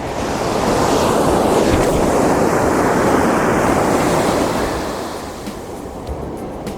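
Ocean surf on the beach: a wave's wash swells up about half a second in, stays loud for several seconds, then fades away near the end.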